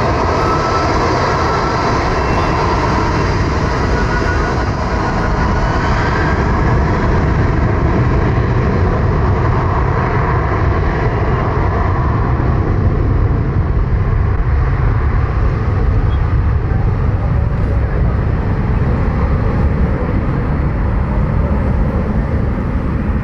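Airbus A330-300's Rolls-Royce Trent 700 turbofans running at high power as the airliner lines up and rolls away down the runway for takeoff: a loud, steady jet rumble with a rising whine in the first few seconds.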